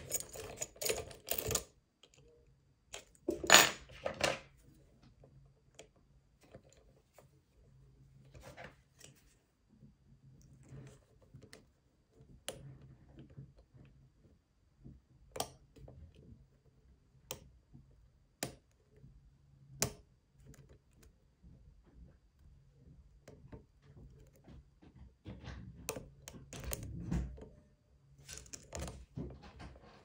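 Small metallic clicks and scrapes of a lock pick and tension wrench working the pin stack of an APECS euro profile cylinder during single pin picking. The clicks come irregularly, with louder bunches near the start, about four seconds in, and again near the end.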